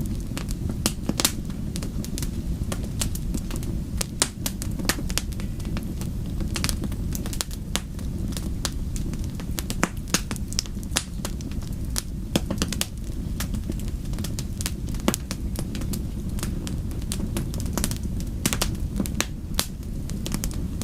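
Fireplace fire crackling and popping: irregular sharp snaps, several a second, over a steady low rumble of the flames.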